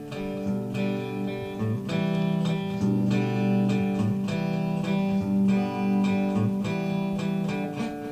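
Instrumental break in a folk-style song: acoustic guitar playing steadily, with no singing.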